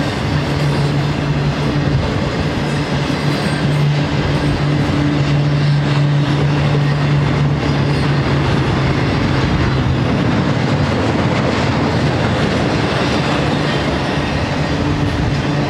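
Loaded intermodal freight cars of a BNSF train rolling steadily past on the rails. A low hum underlies it, fading in the middle and coming back near the end.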